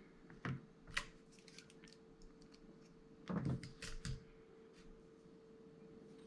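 Small sharp clicks and taps from handling the parts of an old lighter: two clicks near the start, then a quick cluster of clicks about three to four seconds in, over a faint steady hum.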